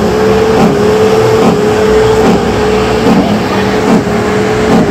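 Loud truck noise, with a steady droning tone held throughout and a low pulse recurring about once a second.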